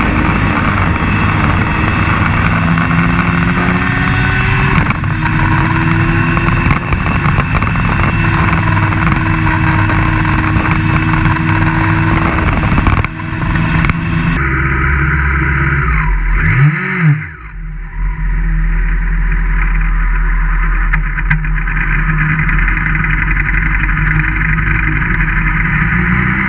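Open-wheel race car engine running hard on track, picked up by an onboard camera, its pitch stepping with gear changes and throttle. About fourteen seconds in the sound changes abruptly to a steadier, lower engine note, with a brief dip a few seconds later and the pitch rising again near the end as the car accelerates.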